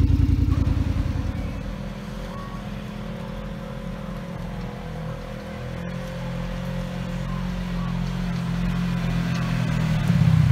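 Side-by-side UTV engines running. A loud engine at the start fades within a couple of seconds, then an engine draws closer and grows louder toward the end as the machine pulls up close.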